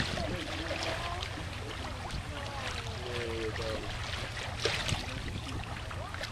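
Water washing and splashing along the hull of a sailboat under way, over a steady low rumble, with a sharper splash a little past halfway. Faint voices come and go in the background.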